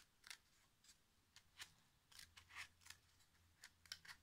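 Scissors cutting around a cardboard toilet-paper tube to halve it: a run of about ten short, faint snips at uneven spacing.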